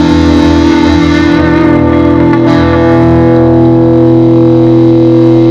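Instrumental music: a distorted electric guitar chord held and ringing out at the end of the song, with effects.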